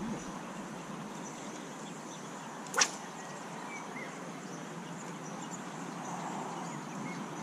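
Steady outdoor riverside hiss of flowing water and breeze, with a few faint high chirps and one sharp click nearly three seconds in.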